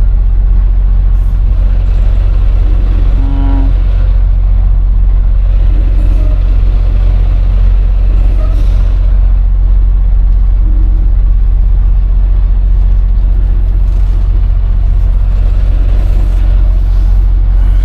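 Semi-truck diesel engine running with a steady, deep drone while the rig is backed and manoeuvred into a dock. A short pitched tone sounds briefly about three seconds in.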